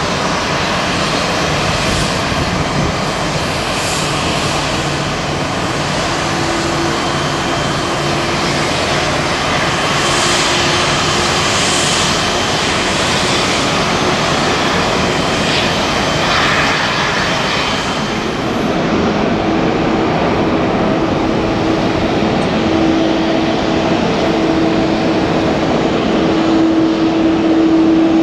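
Jet engines of a taxiing Boeing 787 airliner running at low taxi power. About two-thirds of the way through it gives way to a taxiing Boeing 737, whose engines add a steady hum that grows louder near the end.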